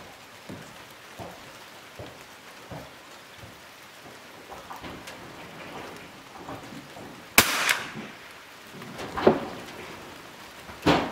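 A single rifle shot about seven seconds in, sharp with a short ring after it, followed by two lighter clacks as the rifle's bolt is worked.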